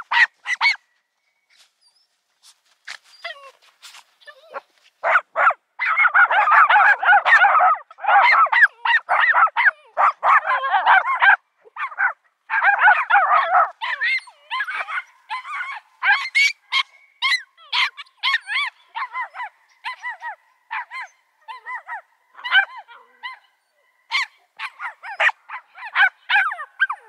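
Small dogs barking excitedly at an unfamiliar dog, several voices overlapping in a dense stretch of rapid barking from about six to fourteen seconds in, then shorter, separate barks.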